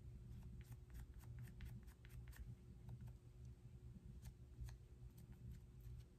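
Near silence with faint, irregular light clicks and taps: a small sponge applicator dabbing paint along the edges of a small wooden block. A low steady room hum sits underneath.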